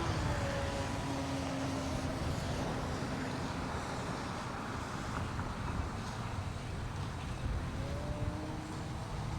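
A small electric motor whining, its pitch dropping just after the start, fading out, then rising again near the end, over steady wind noise on the microphone.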